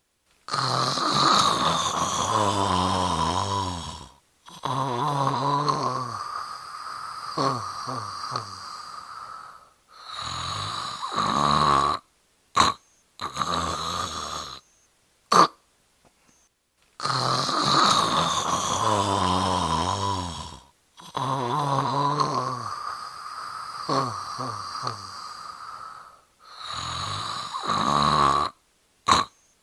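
A person snoring: a run of long, drawn-out snores, each a few seconds, with short breaks between them and a few short sharp clicks in the gaps. The same sequence of snores plays again about halfway through, as a looped recording.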